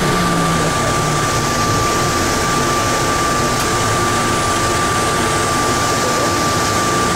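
Plane Train automated people mover running through its underground tunnel, heard from inside the car: a steady rumble and hiss of the moving train with a constant high-pitched whine.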